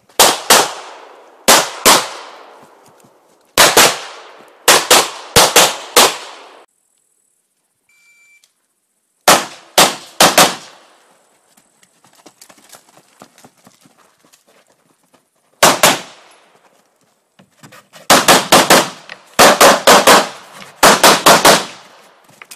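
Pistol shots fired in quick pairs and fast strings, the double taps of practical shooting: about two dozen sharp, loud reports in bursts separated by pauses of a few seconds, each with a brief ringing tail.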